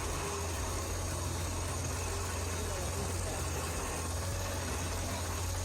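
Heavy machine engine running steadily, a constant low hum with no change in speed.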